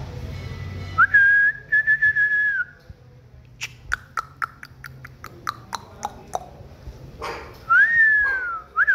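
A person whistling: one steady whistled note lasting about a second and a half, then a run of about ten sharp clicks, then a short falling whistle and a brief rising one near the end.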